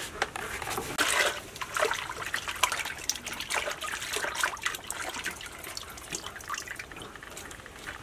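Water splashing and sloshing as hands rub and turn pieces of raw pork in a plastic basin of water, washing the meat.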